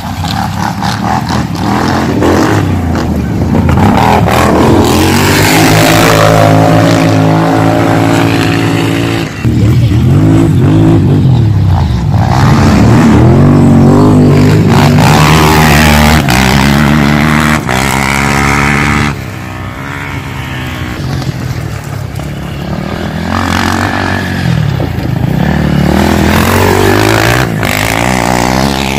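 Racing quad bike (ATV) engines revving loudly, their pitch climbing and falling again and again as the riders accelerate and back off.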